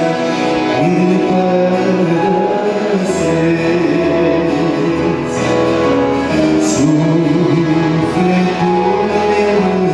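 A man singing a Romanian gospel song into a microphone, accompanied by electronic keyboard and acoustic guitar.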